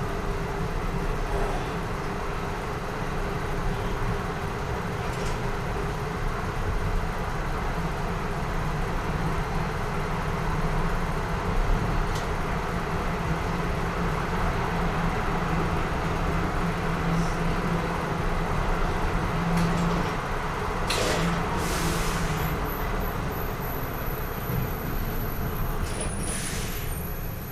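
Bus engine running steadily at a stop, with a low hum. About 21 seconds in, and again near the end, come short bursts of hissing air typical of air brakes, followed by a thin high whine.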